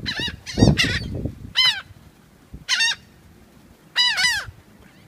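Several birds of the flock calling loudly in short, harsh, arching cries, two or three at a time, with a last run of calls about four seconds in.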